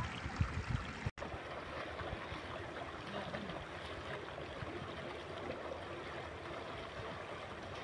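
Steady rush of shallow water flowing along an irrigation channel. A few low thumps come in the first second, then a brief dropout about a second in.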